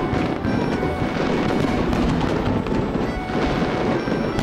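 Aerial fireworks display going off in a continuous rumble of bursts, with music playing over it.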